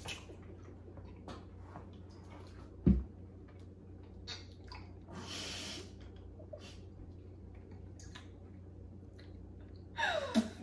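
Soft mouth sounds and breathing from a person eating candy, with scattered small clicks, one dull thump about three seconds in and a short breathy hiss a little past the middle. Voice sounds start just before the end.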